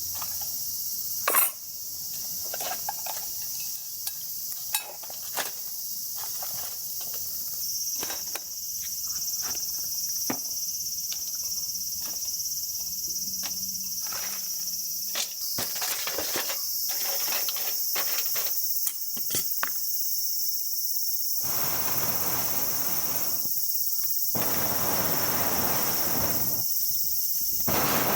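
Steady high-pitched chorus of summer insects, with scattered sharp clicks and knocks. In the last several seconds there are three rushing noise stretches, each a few seconds long.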